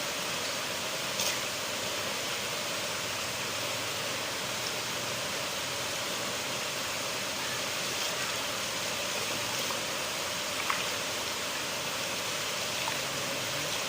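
River water flowing steadily, an even rushing with a couple of brief clicks about a second in and again near the end.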